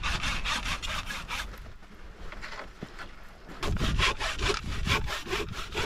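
Hand saw cutting through dry dead wood in quick, even back-and-forth strokes. The strokes go softer for a stretch in the middle and grow louder again in the second half.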